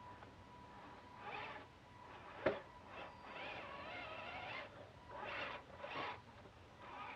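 RC Clodbuster crawler being driven: short bursts of electric motor and gear whine that rise and fall, with tyres scraping and rubbing over the ground and a sharp knock about two and a half seconds in.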